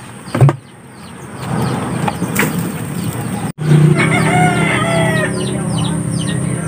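A rooster crowing once, about four seconds in, over a steady low hum and a run of short high chirps. A short knock comes near the start.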